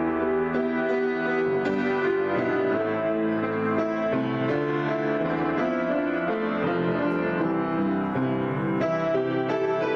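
Grand piano played in a free improvisation: a steady flow of overlapping notes and chords ringing into one another.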